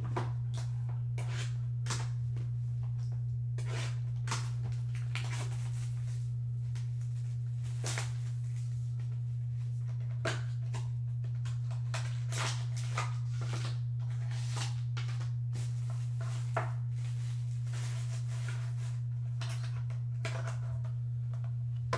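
A strong steady low hum, with scattered rustles, crinkles and light taps of hands handling and opening small cardboard trading-card boxes and their clear plastic wrapping.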